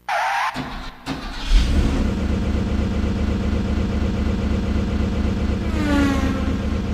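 Car engine sound effect from a karaoke machine's built-in effects: a short rush of noise and a click, then the engine starts about a second and a half in and settles into a steady idle, with a brief falling whine near the end.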